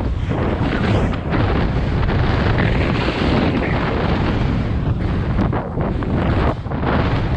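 Rushing wind buffeting an action camera's microphone during a fast descent, over the hiss of skiboards (snowblades) cutting through deep powder, with a few brief dips as the rider turns.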